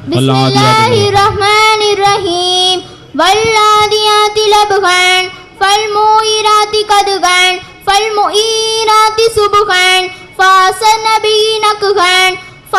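A young girl chanting Quran recitation from memory in melodic tajweed style into a microphone. She sings phrases of two to three seconds on long held notes, with short breaks for breath between them.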